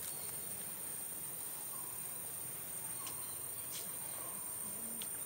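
Outdoor insect drone: a steady, very high-pitched hum from insects, with faint short falling chirps about once a second and a few soft clicks.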